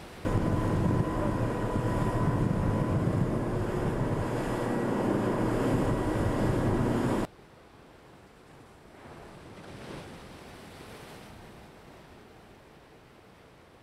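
Loud wind buffeting the microphone over rushing water and spray, with a faint steady whine. It cuts off abruptly about seven seconds in, leaving a much quieter wash of wind and waves.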